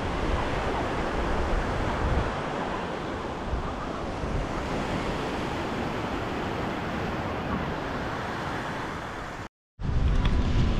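Surf washing onto a sandy beach, with wind rumbling on the microphone. The sound drops out for a moment near the end and comes back with heavier wind rumble.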